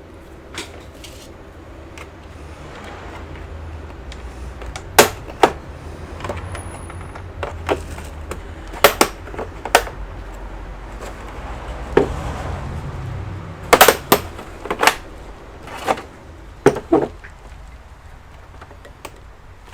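Irregular sharp clicks and knocks, about a dozen, some in quick pairs, from tools and plastic casing parts being handled while an all-in-one computer is taken apart, over a low steady hum.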